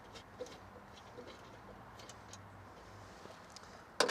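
Faint, irregular metallic clicks of hand tools loosening the door checker bolts, then a sharp, louder clack near the end.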